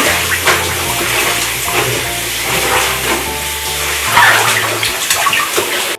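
Bathtub water running and sloshing around dogs standing in it during a bath.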